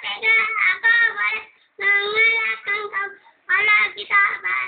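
A young boy singing into a microphone, in three phrases with short pauses between them and some notes held steady.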